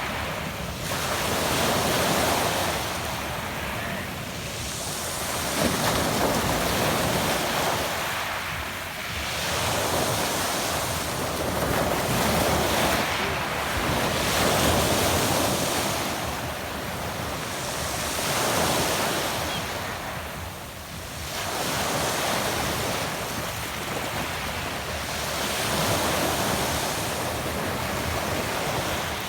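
Adriatic Sea waves washing onto a pebble beach, swelling and ebbing about every four seconds.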